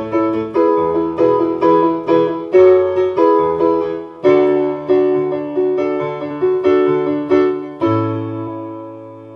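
Digital piano playing the closing bars of a worship song: chords struck in a steady rhythm, then a final chord in A about eight seconds in, held and fading away.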